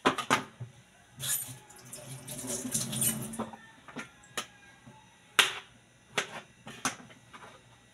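Kitchen knife cutting through ripe papaya onto a plastic cutting board: a few sharp knocks of the blade on the board, the loudest about five and a half seconds in, with a softer hissy stretch of handling in the first half.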